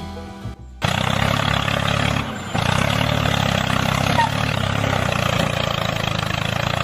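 A motor runs steadily with an even, engine-like hum. It starts abruptly about a second in, after a moment of music, and dips briefly about two and a half seconds in.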